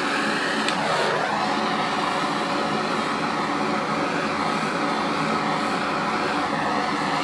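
A handheld butane torch burning with a steady hissing flame while heating vinyl rifle-wrap on a magazine so it softens and molds to the shape.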